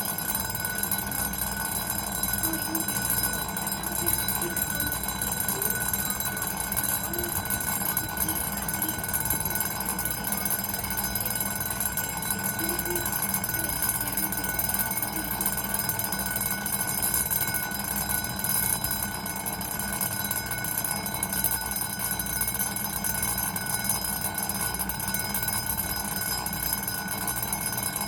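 Railway platform departure bell, an electric bell ringing steadily without a break.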